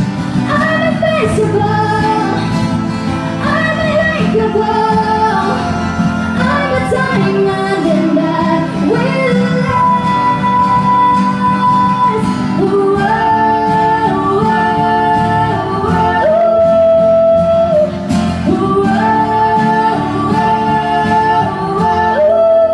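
Live country-pop band with a female lead singer, singing over guitar and band accompaniment with several long held notes.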